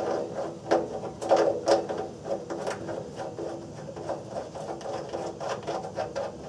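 Brass drain valve at the base of a gas water heater being twisted by hand: a run of short scraping creaks, about two or three a second, each with a faint squeal.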